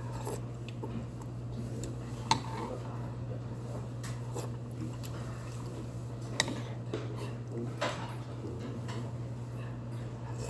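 Metal spoon clinking against a heavy black soup bowl a few times, sharp short clinks about two, six and eight seconds in, over a steady low hum.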